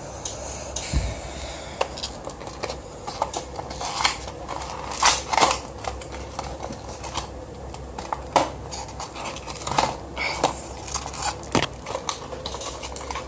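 Fidget spinner packaging being handled and worked open by hand: irregular crinkles, clicks and scrapes.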